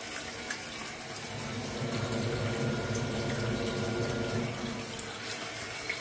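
Water running from a kitchen tap into a stainless-steel sink. A low mechanical hum with a thin steady whine joins it about two seconds in and fades near the five-second mark.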